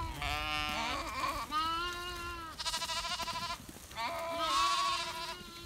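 Sheep in a moving flock bleating, about four long calls one after another, some overlapping, with a brief pause about four seconds in.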